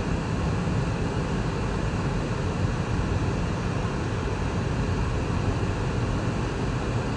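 Steady low rumble of a car driving slowly on a snow-covered road, heard from inside the cabin: tyre and engine noise with no sudden events.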